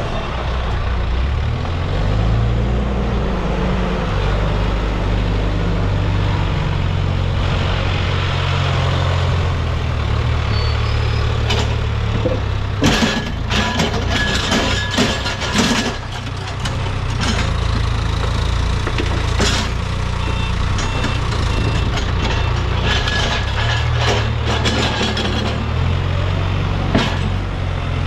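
Case backhoe loader's diesel engine running under working load, its revs rising briefly about two seconds in. A run of sharp clattering knocks comes around the middle, with a few more later.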